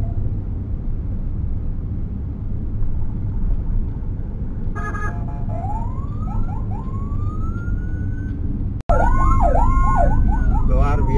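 Emergency vehicle sirens from a police-escorted convoy, heard from inside a vehicle cabin over a steady low engine and road rumble. About halfway through there is a short blast, then a siren wail rises slowly; after an abrupt jump in loudness near the end, several sirens overlap with rising and falling wails and quick yelps.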